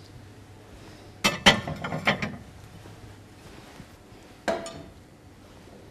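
Wooden ladle knocking and clinking against a pot and a ceramic plate while soup and meatballs are served out: a quick cluster of clinks just over a second in, and a single knock at about four and a half seconds.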